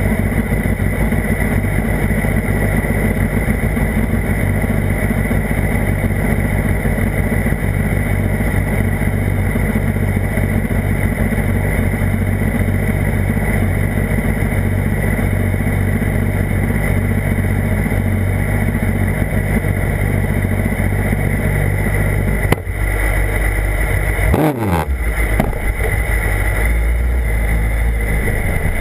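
BMW HP4's inline-four engine running at a steady pitch while the bike is ridden. Near the end the note breaks off briefly, then drops quickly in pitch and settles at a lower note.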